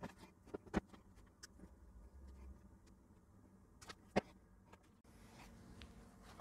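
A few faint, sharp clicks and taps of a small circuit board being handled and set down on a plastic cutting mat, with near-quiet room tone between them.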